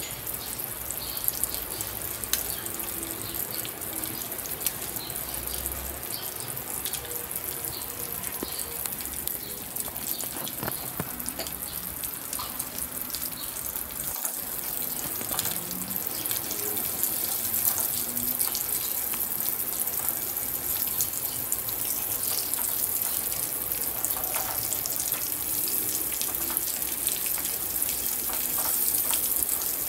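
Spice-coated chicken pieces deep-frying in hot oil: a steady crackling sizzle of bubbling oil, a little louder in the second half.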